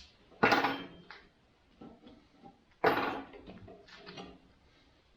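Two sharp knocks about two and a half seconds apart, each dying away briefly, with a few lighter taps between: tools and metal being handled in the shop.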